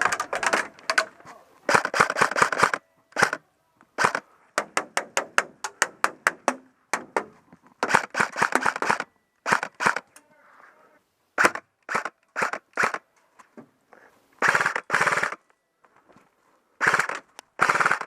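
LCT RK104 airsoft electric rifle firing: short full-auto bursts and quick single shots, with brief pauses between volleys.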